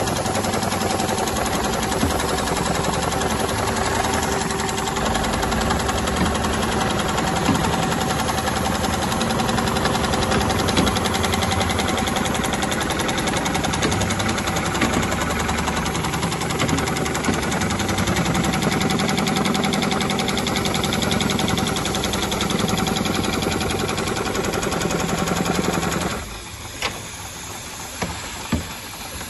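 Dürkopp Adler heavy-duty sewing head of an automatic CNC belt-sewing machine stitching at speed, a fast steady mechanical rhythm. It stops suddenly near the end, followed by a few sharp clicks.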